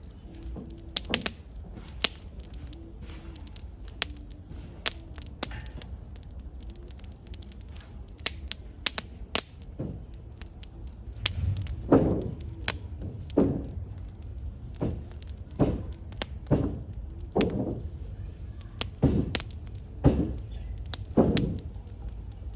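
Campfire of paper and wood burning, crackling with irregular sharp pops and snaps. In the second half a run of louder, duller strokes comes about once a second.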